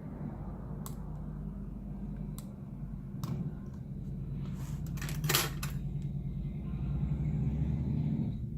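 Small, sharp clicks and taps of hands and tools working a laptop display cable connector, a few single ones and then a louder quick cluster about five seconds in, over a steady low hum that stops near the end.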